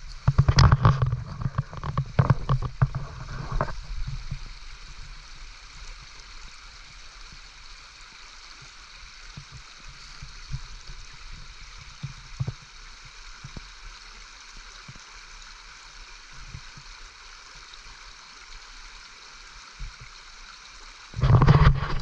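Small brook running steadily, an even rush of water. For the first few seconds and again near the end, loud rumbling knocks and bumps sit over it.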